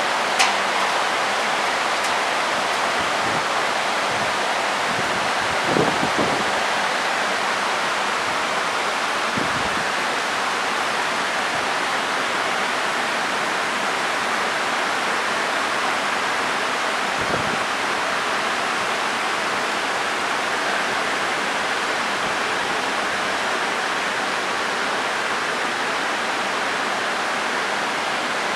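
Heavy tropical rain pouring down steadily, a dense even hiss with no let-up. A few faint brief thumps sound through it, around 6 s, 9.5 s and 17.5 s.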